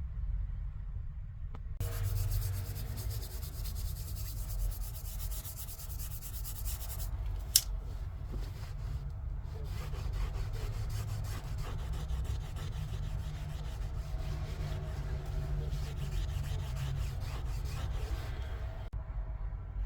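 Scrubbing and rubbing against a surface over a steady low machine hum, with one sharp click about seven and a half seconds in.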